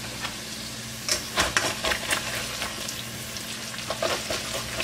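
Diced potatoes sizzling steadily in a covered frying pan as they are stirred and turned, with a few scrapes and knocks in the pan about a second in and again near the end.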